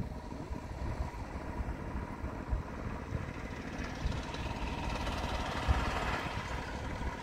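Backpack electrofishing unit buzzing steadily with a thin high whine as its pole probes the pond bank, over a low rumble.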